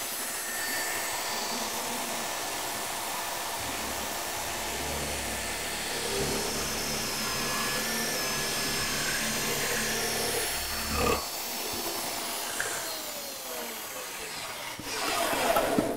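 Electric drill in a drill stand boring into solid wood with a flat spade bit, over the steady running of a shop vacuum. The drilling load is heaviest from about 4 to 11 seconds; after that the drill's pitch falls as it slows.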